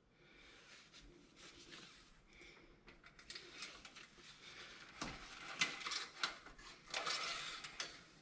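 Faint handling noises while the engine oil level is checked with the dipstick: light clicks, taps and rustling, busier and louder in the second half.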